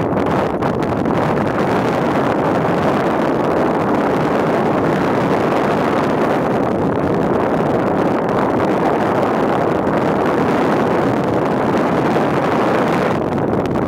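Steady rush of wind over the onboard camera microphone of a Multiplex EasyStar foam model plane in flight. The higher part of the hiss drops away about a second before the end.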